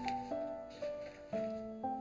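Background music: a melody of held notes that changes about twice a second.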